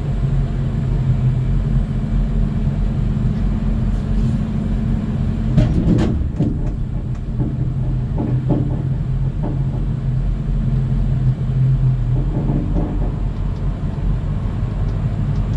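Tow truck engine running steadily while the truck's winch loads a van, with a few metal clanks about six seconds in.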